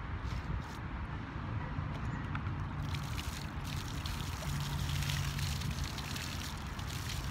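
Water poured from a plastic bucket over the top of a granite headstone, splashing and running down the stone as it is rinsed. The pour grows louder about three seconds in.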